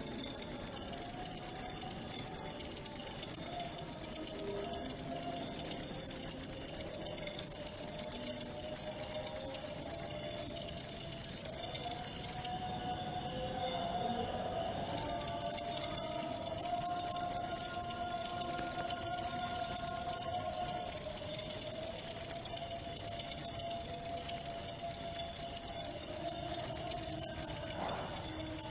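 Cricket chirping in a continuous, fast-pulsed high trill that stops for about two seconds near the middle and then starts again.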